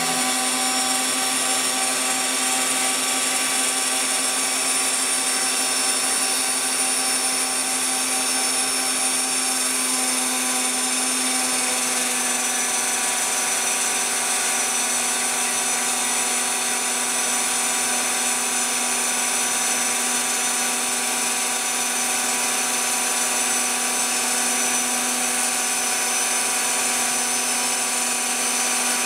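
Homemade CNC router's spindle motor running steadily as its bit cuts through fibreglass sheet: a constant, unchanging whine with no pauses.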